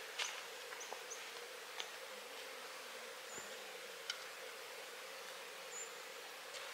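Insects buzzing in a steady, even drone, with a few faint short high chirps and occasional light clicks.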